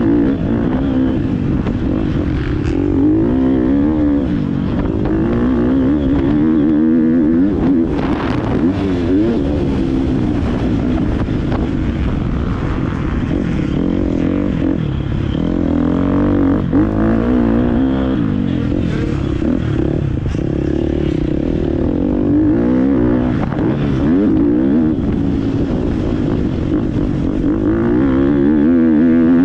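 GasGas 250 motocross bike's engine, ridden hard around a dirt track. The revs rise and fall over and over with throttle and gear changes.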